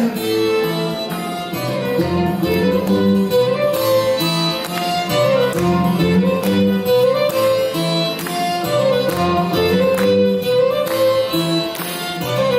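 Live rock band playing an instrumental passage after the last sung line: a violin carries the melody over guitar, with a steady beat.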